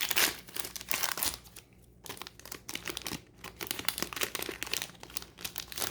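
Wrapper of a trading-card fat pack being torn open and crinkled, in irregular crackling bursts.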